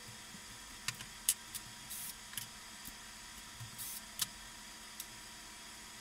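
Metal parts of a disassembled Smith Corona electric typewriter's key mechanism clicking and rattling as it is handled and turned over: a string of scattered sharp clicks with a couple of short scraping rustles.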